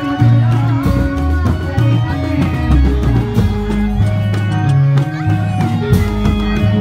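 Loud music with a deep bass line in held notes, a melody over it and drum strikes, the accompaniment of a Reog Indramayu street performance.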